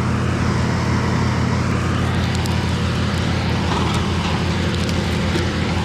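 Chainsaw engine idling steadily.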